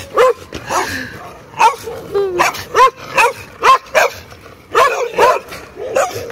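Several dogs barking over and over, about two short barks a second at differing pitches, some overlapping.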